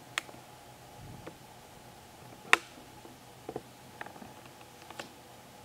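Marker writing on a whiteboard: a few short taps and squeaks as the letters are drawn, the sharpest about two and a half seconds in.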